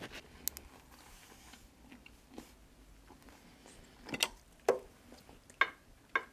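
Eating sounds: a few short, soft mouth clicks and smacks, several of them close together in the second half, with quiet stretches between.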